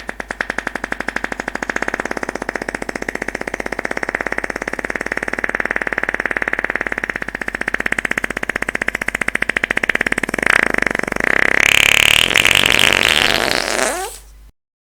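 Fart sound effect: one long, rapidly fluttering fart, changing to a higher, more continuous, wavering tone about ten seconds in and stopping shortly before the end.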